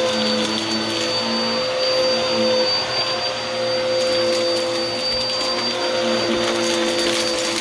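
Vacuum cleaner running steadily, its motor giving a constant whine over a rush of suction, with scattered crackles of crunchy debris being sucked up.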